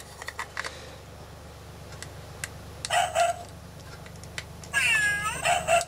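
A toy's sound chip playing short recorded animal calls through a tiny speaker: a brief call about three seconds in and a longer one with a bending pitch near the end, with a few small handling clicks before them.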